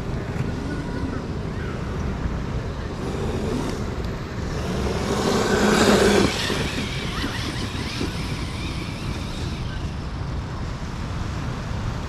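Upgraded 3S Arrma Granite RC monster truck driving past close by, its motor whine and tyre noise building to a peak about six seconds in and then cutting off sharply, over a steady low background rumble.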